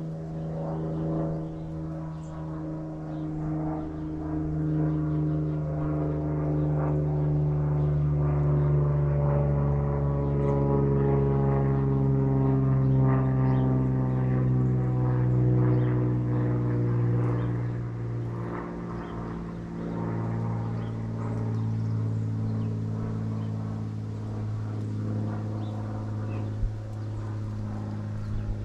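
An engine drones steadily, its pitch sinking slowly for about twenty seconds and then holding level. It is loudest in the middle.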